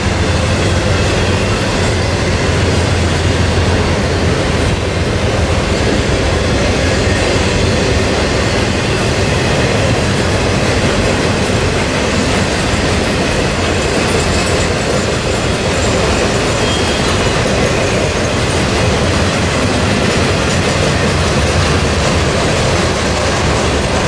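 Norfolk Southern intermodal freight train's cars rolling steadily past, the continuous noise of steel wheels on rail.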